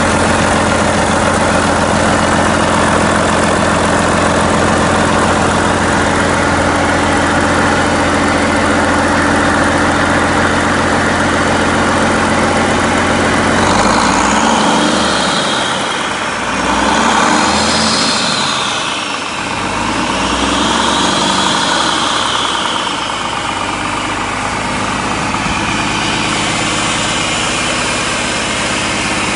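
A Volvo D13 inline-six diesel engine idling steadily on a test stand. Its tone wavers for several seconds midway, then settles back to a steady idle.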